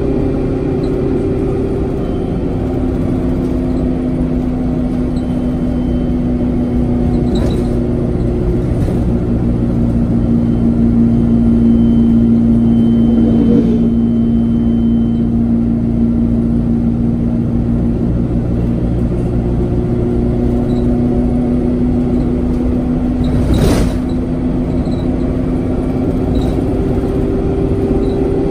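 Alexander Dennis Enviro 200 single-deck bus's diesel engine running on the move, heard from inside the saloon: a steady engine drone whose pitch shifts and grows louder about ten seconds in, then eases. A single sharp knock comes near the end.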